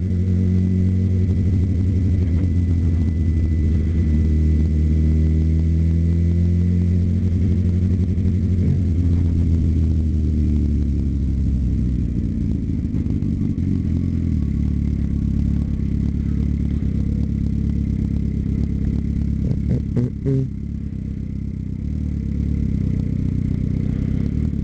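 Suzuki GSX-R750 inline-four engine running under way, its pitch rising and falling with throttle and gears for the first ten seconds or so, then running lower and steadier. A few clicks about twenty seconds in, as the engine briefly drops, before it picks up again near the end.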